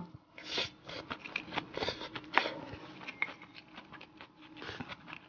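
Close-up chewing of a mouthful of oily rice with pickled cabbage: soft, wet, irregular mouth sounds with small clicks.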